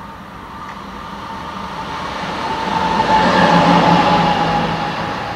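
Red ÖBB diesel locomotive passing close by on the platform track: its engine and wheels grow louder to a peak a little past the middle, then fade. A steady whine drops slightly in pitch as it goes by.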